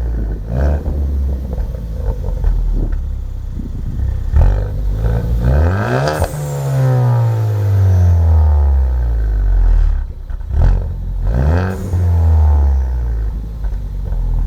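2012+ Ford Focus ST's turbocharged 2.0-litre four-cylinder, resonator deleted with the stock muffler kept, revved several times: the pitch climbs quickly, then falls slowly back to idle with a purring, gurgling exhaust note on the way down.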